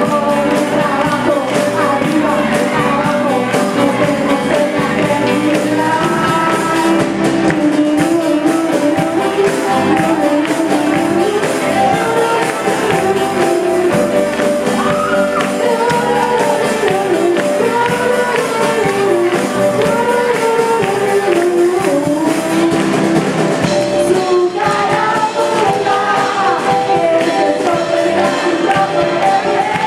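A group of teenagers singing a song together, led by a girl on a microphone, over a live band of acoustic guitar, electric guitar and drums.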